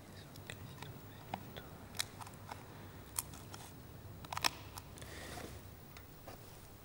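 Faint crisp snaps and clicks of a priest's fingers breaking the large altar bread (the Host) over the chalice: the fraction of the Host in the Latin Mass. A cluster of the sharpest cracks comes about four and a half seconds in.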